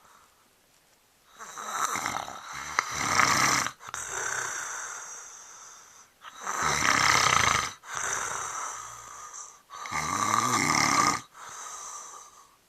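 A man snoring in his sleep: three loud, rough snores, the first about a second and a half in, each followed by a quieter breath that trails off.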